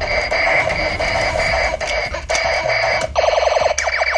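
Electronic sound effects from a battery-powered toy gun's speaker: a pulsing tone repeating about three times a second, then, about three seconds in, a rapid machine-gun-style rattle that starts abruptly and breaks off briefly.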